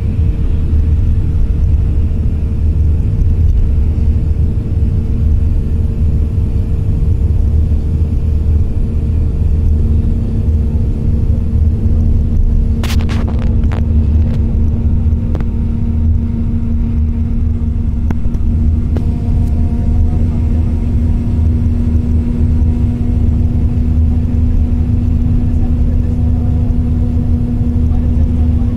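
Steady low rumble of road and engine noise inside a moving vehicle, with a constant hum over it. A brief cluster of sharp clicks comes about halfway through.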